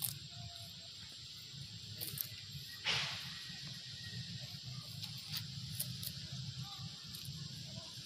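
Long-tailed macaque plucking and eating grass: a few short snaps and a louder rustling burst about three seconds in, over a steady outdoor hiss.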